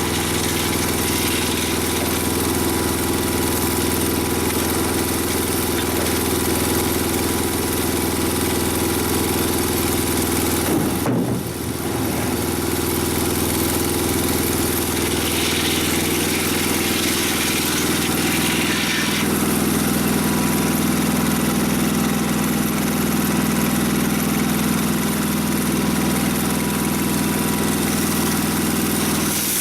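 Portable sawmill's engine running steadily, with a brief drop about a third of the way in and a lower, stronger hum setting in about two-thirds through.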